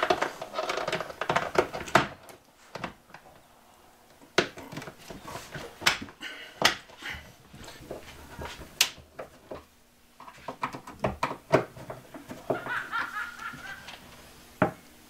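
Scattered sharp clicks and knocks of a wooden cabinet door and its metal European cup hinges being fitted and adjusted with a hand screwdriver.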